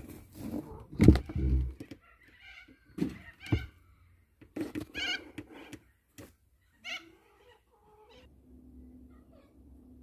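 A few heavy thumps and rustling in a wooden nest box, then a domestic hen clucking in short calls, about five of them spread over several seconds.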